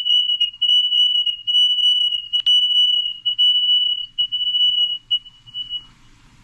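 A loud, steady, high-pitched electronic whistle with short dropouts, fading out near the end, and a single click about two and a half seconds in.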